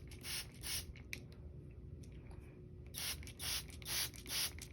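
Hand-pumped trigger spray bottle misting water in short hissing spritzes: a few in the first second, then a quicker run of about five from three seconds in.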